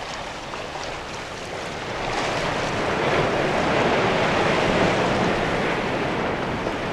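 A steady rushing noise with no music, growing louder about two seconds in and then holding.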